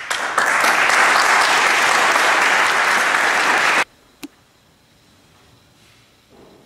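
Audience applauding for nearly four seconds, then cut off abruptly, followed by a single sharp click.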